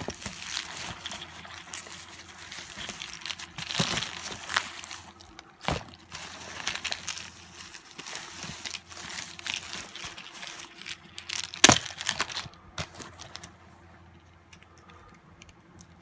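Bubble wrap and plastic packing crinkling and rustling as wrapped spray cans are handled and lifted out of a cardboard box, with a few sharp knocks, the loudest about three quarters of the way in. The rustling dies down for the last couple of seconds.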